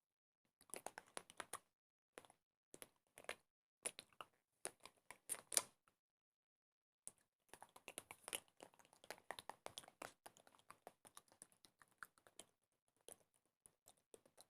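Quick runs of sharp, dry clicks and taps in bursts, with a pause of about a second around six seconds in, then a longer, denser run.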